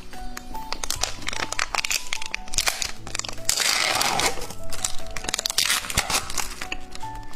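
Background music with steady notes, over plastic candy packaging crinkling and clicking as it is handled, with a longer, louder rustle about three and a half seconds in.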